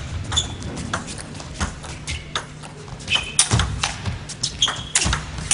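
Table tennis rally: the ball knocking back and forth off bats and table in an irregular run of sharp clicks, some with a short ringing ping.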